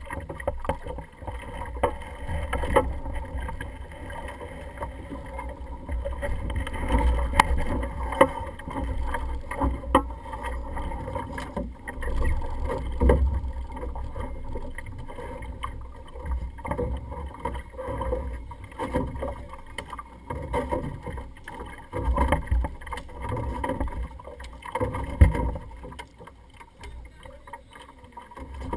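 Optimist dinghy under sail: wind rumbling on the on-board microphone, water washing against the hull, and irregular sharp knocks from the hull and rigging.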